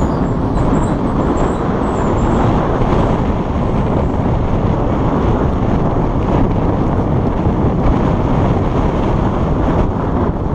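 Steady, loud rumble of vehicle noise with no breaks or distinct events.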